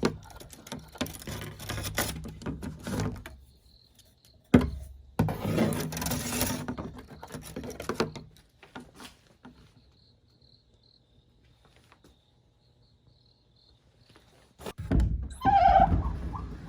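Rustling and handling noises with a sharp thud about four and a half seconds in, then a quiet stretch with a faint high chirping like insects; near the end a louder burst of noise with a pitched, rising whine.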